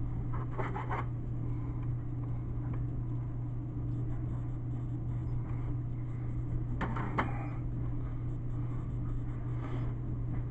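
Steady low electrical hum in a cheap video camera's recording, with a few faint knocks and clicks about a second in and again about seven seconds in.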